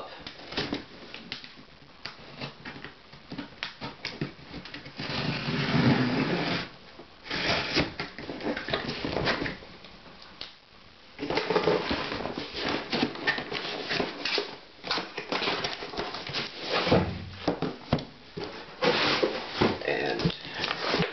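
A cardboard shipping box being opened and unpacked by hand: bursts of scraping, rustling and knocking cardboard as the flaps are pulled open and an inner cardboard laptop box is slid out and set on a wooden table.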